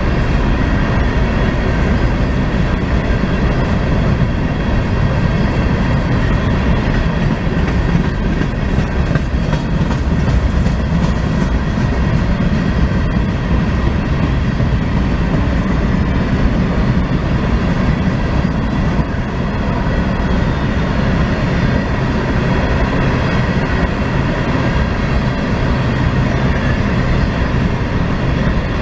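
Freight train of empty CSX phosphate hopper cars rolling past at speed: a steady, loud rumble of steel wheels on rail, with a clickety-clack of wheels over rail joints.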